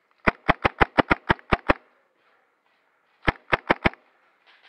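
KWA M11A1 gas blowback airsoft machine pistol firing: a quick string of nine shots, about six a second, then after a pause of about a second and a half, four more.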